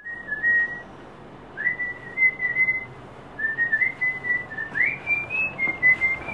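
A person whistling a tune in short held notes, with two quick upward swoops into higher notes about a second and a half in and near the end.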